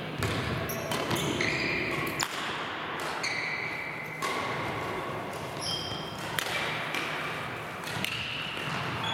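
Badminton rallies in an echoing sports hall: several sharp racket strikes on shuttlecocks, and short high squeaks of players' shoes on the wooden court floor.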